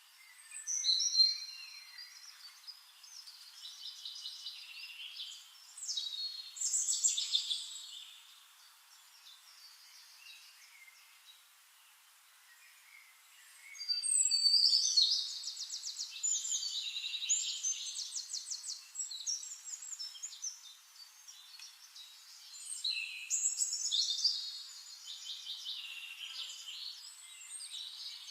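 Songbirds singing in bursts of high, fast trills and chirps, with a quieter stretch of a few seconds in the middle.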